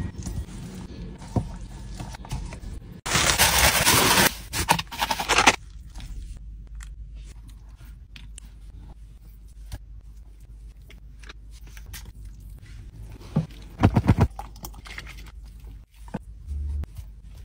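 Hands handling food on a metal serving platter: scraping and small clicks as roast meat is pulled apart over rice. A loud noisy burst lasting about two seconds comes a few seconds in, and another loud cluster comes near the end.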